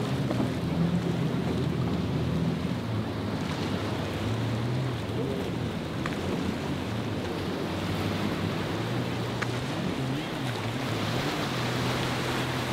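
Motor cruiser's engines running through rough inlet waves, their pitch wavering up and down as the hull rides the swells, over a steady rush of breaking water and wind.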